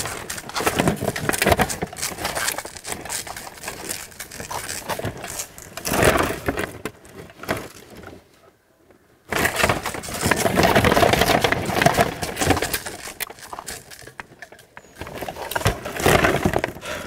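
Metal plate armour clanking and scraping as the wearer walks and swings his arms, the plates knocking and rubbing against each other in a dense run of small clanks. It breaks off into near silence for about a second halfway through, then goes on.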